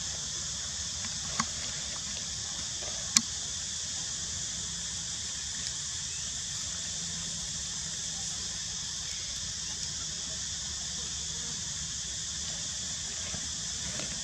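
Steady high-pitched hiss of outdoor background noise, with two sharp clicks about one and a half and three seconds in; the second click is the loudest.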